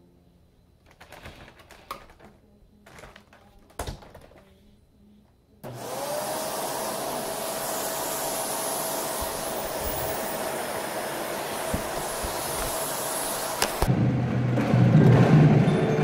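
Upright vacuum cleaner switching on, its motor whine rising and settling to a steady pitch, running for about eight seconds and then cutting off suddenly. Before it, a few faint knocks.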